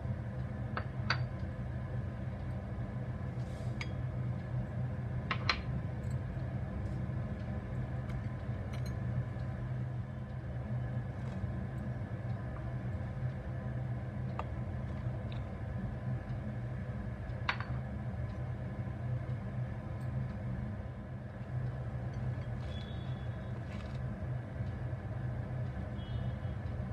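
Sparse light clicks and taps as hard ingredients such as peanuts and garlic cloves drop into an empty stainless-steel mixer-grinder jar, over a steady low background hum.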